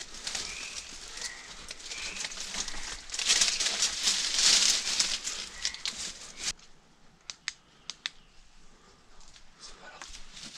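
Brambles and dry undergrowth rustling and crackling as someone forces a way through them on foot, loudest about three to five seconds in. After that it goes quieter, with a few sharp snaps.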